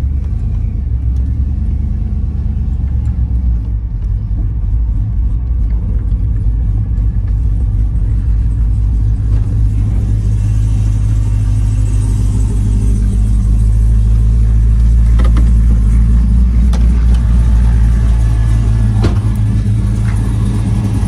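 Supercharged LT4 V8 in an OBS Chevy pickup, rumbling steadily at low revs while the truck creeps along, heard from inside the cab. The rumble grows somewhat louder about halfway through.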